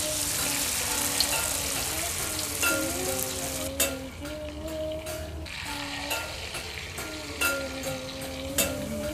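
Rice-flour and peanut batter sizzling as it is spooned into hot oil in a wok to fry rempeyek, the fizz strongest in the first few seconds, with a few sharp clicks.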